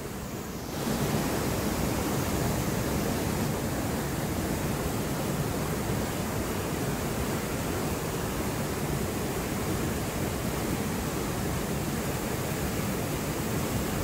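Banias stream cascading over a rock ledge into a narrow chute: the steady rush of falling white water, which gets louder about a second in and then holds even.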